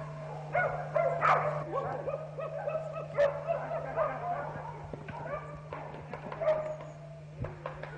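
A pack of scent hounds baying on a chase: many short, overlapping barks and yelps, several a second. This is the hounds giving tongue, the sign that they are on game.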